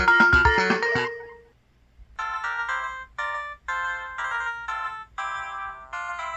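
Two system tones from an EVER EV-W530 feature phone's Qualcomm CMX 72-voice synthesizer, recorded straight from the handset's hands-free jack. A busy polyphonic melody with bass notes ends about a second in, and after a short pause a bright jingle of short chime-like chords follows, about two a second.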